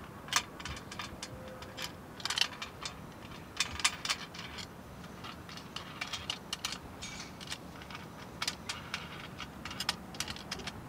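Irregular light metallic clicks and taps of a solar ground mount's pivot plate and T-bolts being shifted and seated in an aluminum rail channel, coming in small clusters.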